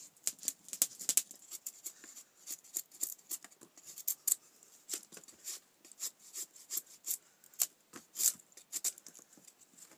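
A knife carving feather sticks from a dry wooden stick: quick, irregular shaving strokes, each a short crisp scrape as a curl of wood is cut.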